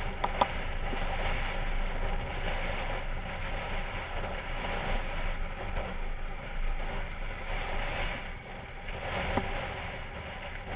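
Off-road vehicle on the move: a steady rushing noise with no clear engine note, and a couple of brief knocks, one near the start and one about nine seconds in.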